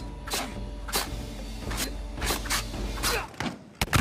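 Film soundtrack: a low sustained music drone under a string of about eight sharp cracks at irregular intervals. The drone drops away a little after three seconds in.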